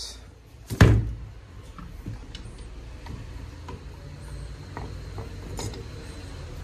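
A loud knock about a second in as a cordless drill is set down on a wooden workbench. Then light clicks and metal taps as a steel bench vise is loosened by its sliding handle and an aluminium scooter transmission case is lifted out of the jaws.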